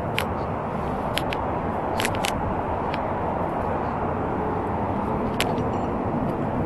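Gear and handling noise from a climber rappelling down a rock face: a steady rustling rush with scattered sharp clicks, like clothing, rope and hardware knocking against rock.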